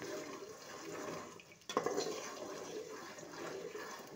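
Metal spoon stirring sugar into ghee in a steel cooking pot: a steady gritty scraping and swishing that stops briefly about a second and a half in, then starts again sharply.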